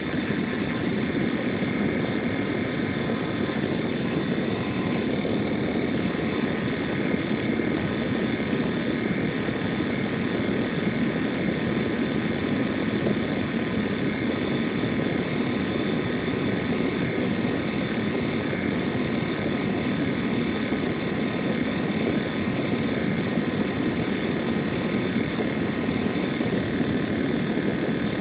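INSYS GameForce laptop cooling fan running with a steady, unchanging whir and faint high tones above it: the strange noise the owner hears from the fan. Somewhat distorted, as picked up on a phone.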